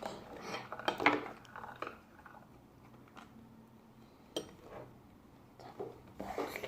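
A utensil clinking and scraping against a bowl in scattered short strokes, busiest in the first couple of seconds and again briefly near the end.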